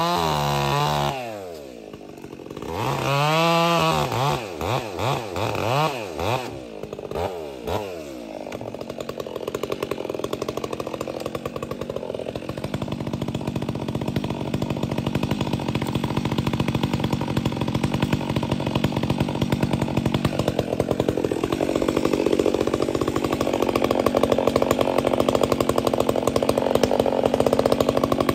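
Stihl 362 C-M two-stroke chainsaw with a Bark Box aftermarket muffler, revved up and down several times over the first eight seconds. It is then held at high revs in a long steady run, cutting through cherry wood.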